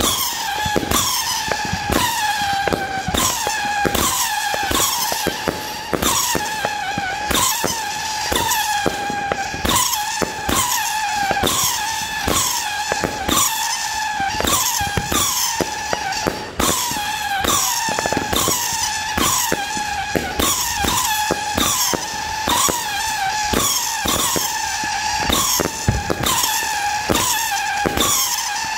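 A 50-shot consumer firework cake firing shot after shot in quick succession. Each shot whistles on the way up with a pitch that falls, among sharp bangs and crackles from the brocade breaks.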